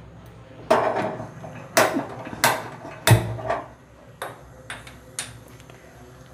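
Metal cookware clanking on a gas stove as a steel kadai is set on the lit burner: four sharp clangs with a short ring, the last the loudest, then a few lighter ticks.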